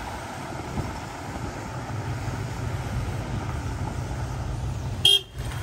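Mahindra Thar's engine running under load as the 4x4 churns through deep mud and standing water, a steady low rumble. A brief sharp click about five seconds in.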